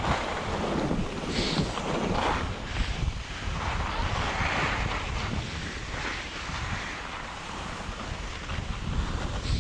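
Wind buffeting an action camera's microphone while skiing downhill, with the swish of skis sliding and turning on snow rising and falling every second or two.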